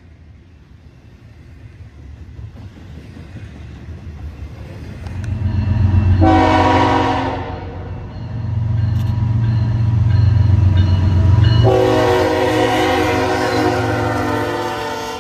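BNSF diesel freight locomotive approaching and passing close, its engines rumbling, and sounding its air horn twice: a short blast about six seconds in and a longer blast from about twelve seconds until the end.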